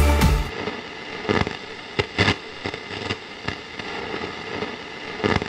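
Background music cuts off about half a second in, followed by sparse, irregular crackles and pops over a low hiss: a glitchy static sound effect.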